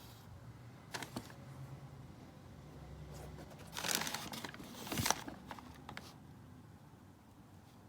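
Paper packaging crinkling and rustling as sneakers are unpacked from their box. There is a short rustle about a second in and a louder, longer stretch of crinkling around the middle.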